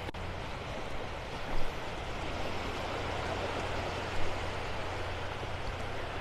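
Gentle Gulf of Mexico surf washing over the shallows, a steady hiss of water. Two short bumps stand out, about one and a half and about four seconds in.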